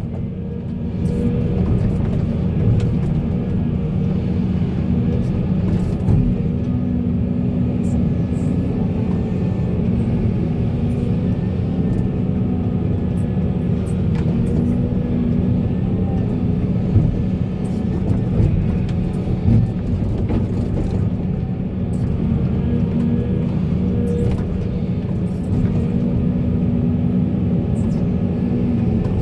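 Heavy diesel machinery engine running steadily under a constant drone, with a few brief sharp knocks scattered through.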